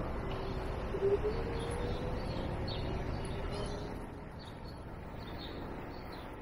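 Steady low rumble of street and riding noise, with birds chirping again and again in short high notes. A thin hum rises slightly in pitch over the first few seconds, then fades.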